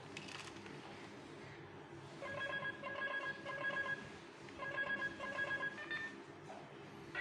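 Bandai Magiphone toy morpher flipping open with a snap, then its speaker plays an electronic telephone-style ring in two bursts of rapid trilling tones with a short pause between, followed by a single short beep.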